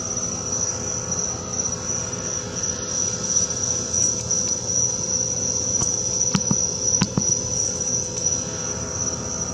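Night insects trilling in one steady, high-pitched chorus over a low background rumble, with a few sharp clicks about six and seven seconds in.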